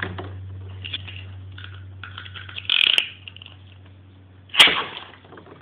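Metal-wheeled Beyblade tops clinking and clattering against each other and a water-filled plastic stadium. A short rattle ends in a sharp click about three seconds in, and a louder sharp knock comes a little before the end.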